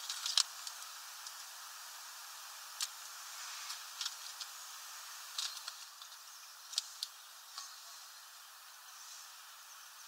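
A small tit bathing in a shallow plastic water dish: a few short, sharp splashes and wing flicks scattered through, the loudest right at the start and about seven seconds in, over a steady hiss.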